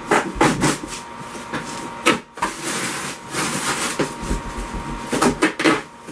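Large cardboard shipping box being pulled and torn open by hand: flaps scraping and rustling in a run of short bursts, with a sharp snap about two seconds in.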